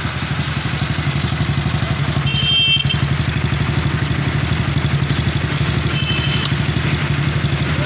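Mini tractor's small petrol engine idling with an even, rapid beat. Two brief high beeps come through, about two seconds in and again about six seconds in.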